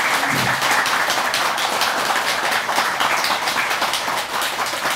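A roomful of people applauding, many hands clapping steadily together.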